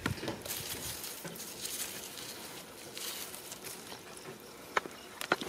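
Soft, uneven scraping and scrabbling of a hand digging in dry, cracked mud, with two short sharp knocks near the end.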